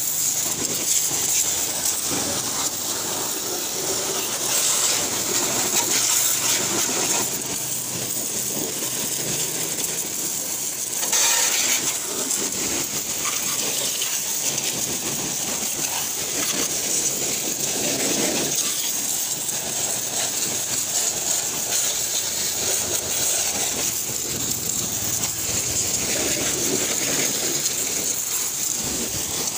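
Pressure washer's high-pressure water jet spraying steadily with a hiss against a motor scooter and the wet concrete beneath it, briefly louder about a third of the way through.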